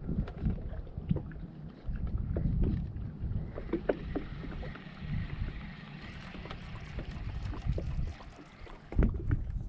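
Wind buffeting the microphone aboard a small boat, with scattered light knocks and clicks. A soft hiss joins in from about a third of the way in until near the end.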